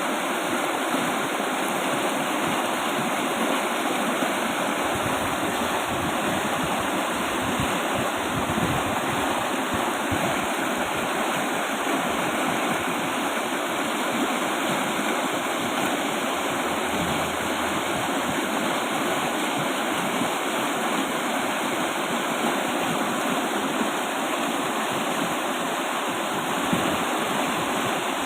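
River with a strong flow rushing, a steady, dense water noise with no let-up.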